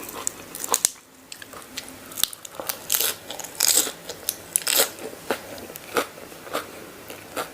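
A person chewing a mouthful of crunchy mee yum, a spicy Thai noodle salad, close to the microphone: irregular crisp crunches with a short pause about a second in.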